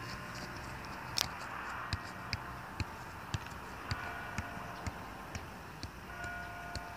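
A soccer ball being juggled: a run of short thumps of foot on ball, about two a second, starting about a second in, the first the loudest.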